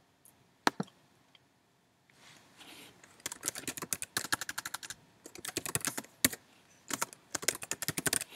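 Typing on a computer keyboard: a quick run of keystrokes entering a file name, after a couple of sharp clicks about a second in.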